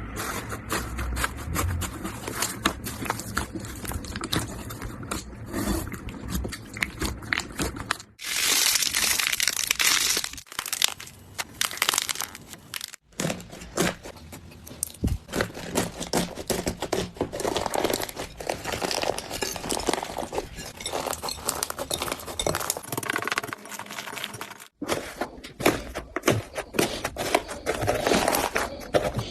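Slime being squeezed, pressed and pulled close to the microphone, making dense crackling, clicking and crunching. The sound cuts abruptly and changes character several times.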